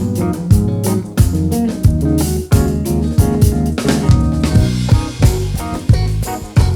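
A live band playing instrumentally: drum kit keeping a steady groove with regular kick and snare hits, electric bass and guitar underneath.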